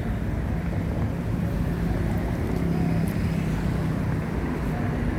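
Steady low rumble of street traffic with a continuous low hum.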